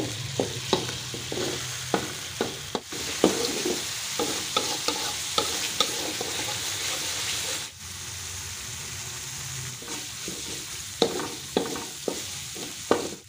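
Blended chili spice paste sizzling in a wok as a metal spatula stirs it, with frequent clicks and scrapes of the spatula against the pan. The paste is being sautéed until it is fully cooked. The sound dips briefly a little over halfway through, then resumes.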